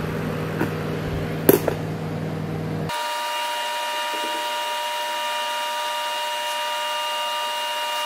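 Sharp microwave oven running a heating cycle with a steady electrical hum and one sharp click about a second and a half in. About three seconds in, the sound jumps abruptly to a thinner, higher-pitched steady whine: the same running hum played fast-forward.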